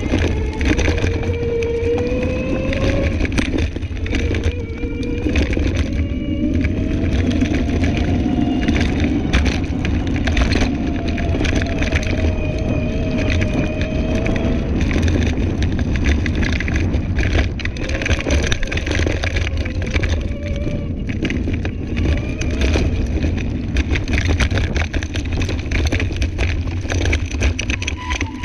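Scooter riding over a rough woodland dirt track: a steady rumble of the tyres on the ground with frequent crackles and rattles, and a faint whine that slowly rises and falls in pitch.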